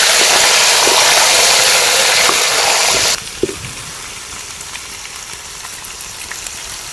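Dried anchovies frying in hot oil in a pan: a loud, even sizzle that drops sharply about three seconds in to a quieter steady sizzle.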